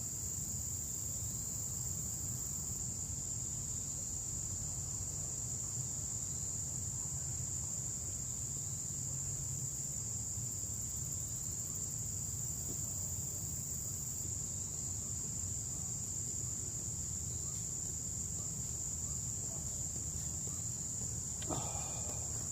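Insects trilling in one steady, unbroken high-pitched drone over a low background rumble, with a brief rustle near the end.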